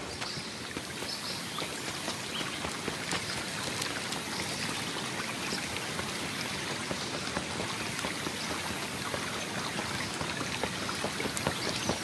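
A stream running, a steady rush of water with no break, with a few faint high chirps in the first second or two.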